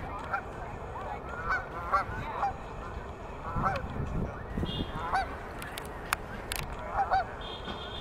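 Geese honking: a flock calling over and over in short, overlapping honks.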